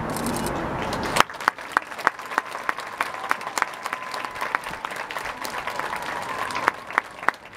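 Marching band field show: a loud, full passage cuts off sharply about a second in. It gives way to a quiet stretch of crisp, evenly spaced percussion clicks, about three a second, over a faint held high note.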